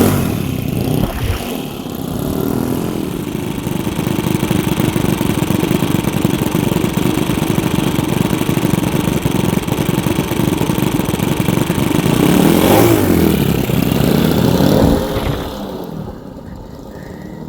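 Four-stroke model-airplane glow engines (an OS FS-62V tractor and a Saito FA-62 pusher with 13x6 propellers) running on the ground with a rapid, even firing beat. They run at a steady high throttle, rise a little toward the end, then are throttled back and drop to a lower, quieter idle about 15 seconds in.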